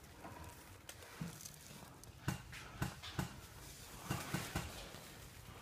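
Faint rustling and a scatter of soft thuds in dry leaf litter, like slow, careful footsteps, several of them about half a second apart in the second half.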